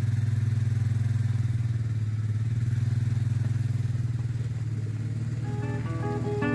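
A motor running steadily at one low pitch, with a fast even pulse. Guitar music fades in near the end.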